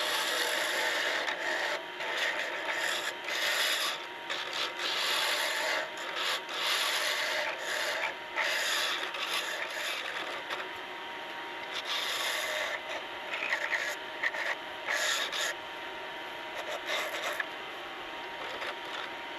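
Bolly gum pen blank spinning on a wood lathe while a hand-held turning tool cuts it, a rough scraping hiss of shavings coming off that swells and dips with each pass of the tool and eases off near the end.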